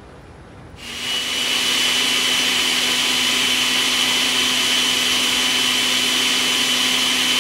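Countertop blender starting up about a second in and running steadily, grinding a cooked tomato, garlic and cashew mixture into a fine purée.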